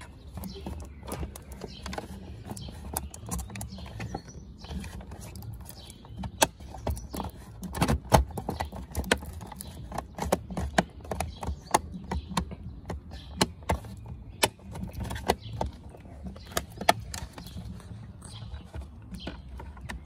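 Irregular plastic clicks and knocks of a Volkswagen MK5 GTI side-mirror housing being handled and snapped back into place on the door, the loudest about eight seconds in.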